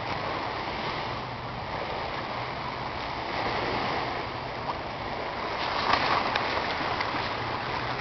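Small waves washing in among shoreline rocks: a steady rush and slosh of water, with a louder splashing surge about six seconds in.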